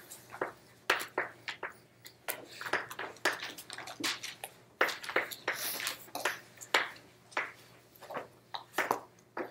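Chalk tapping and scraping on a chalkboard as words are written out, in quick, irregular short strokes.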